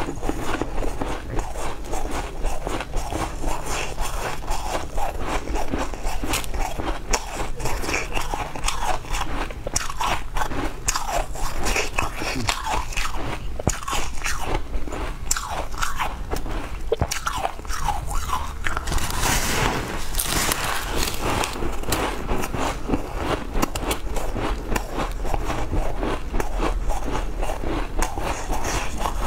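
Biting into and chewing a frosty block of ice: a continuous run of crisp crunches, with a denser, noisier crunching stretch about two-thirds of the way through.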